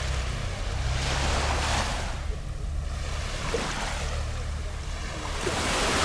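Small Gulf waves lapping on a sandy beach: washes of surf swell and fade every couple of seconds, the biggest at the end, over a steady low rumble.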